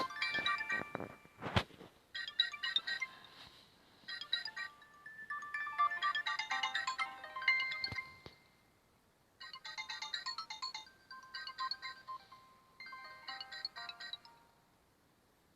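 Nokia 3510i polyphonic ringtone playing a short, bright electronic melody in repeated phrases. Sharp clicks sound in the first two seconds, and the tune stops shortly before the end.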